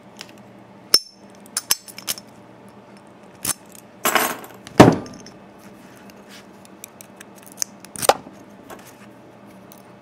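Scattered sharp metal clicks and clinks as a heavy steel padlock is handled and a tension wrench and lock pick are fitted into its keyway, with a short scraping rustle and a louder knock about four to five seconds in.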